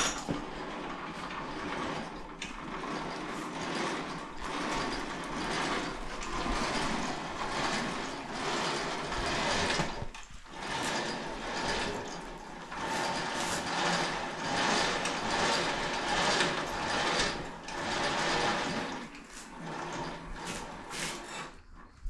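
Electric winch on the front of a Kawasaki Teryx4 side-by-side running as it winds its snapped cable, with a brief stop about ten seconds in.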